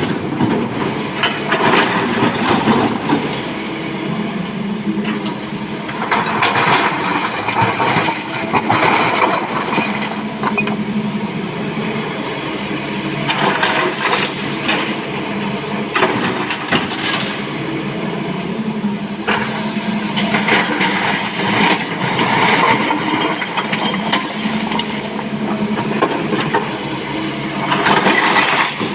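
SANY SY225 excavator's diesel engine working steadily under load, with bursts of rock clattering into a dump truck's steel bed about every seven seconds as the bucket empties.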